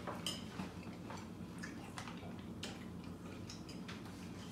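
Chopsticks clicking and scraping against ceramic plates of noodles as two people eat, a scattering of light irregular ticks.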